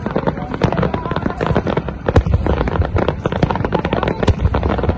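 Fireworks display: a dense, continuous barrage of bangs and crackles from many shells bursting at once, with deeper booms about two seconds in and again near the end.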